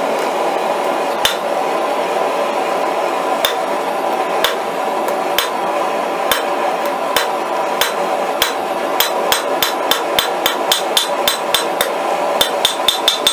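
Hand hammer striking a red-hot steel bolt on an anvil, drawing out a taper: blows about a second apart at first, quickening to about three a second in the second half, with the anvil ringing on the last few. A steady hum runs underneath.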